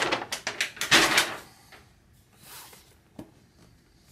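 Cardboard packaging rustling and scraping as a large boxed book is slid and lifted out of it. The noise is busiest in the first second and a half, then dies away, with a small click and a light knock near the end.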